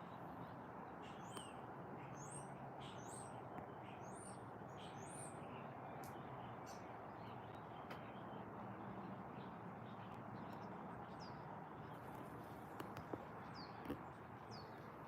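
Faint, high bird chirps and short calls over steady outdoor background noise. They come in a cluster over the first several seconds, with a few more later. A few soft knocks sound near the end.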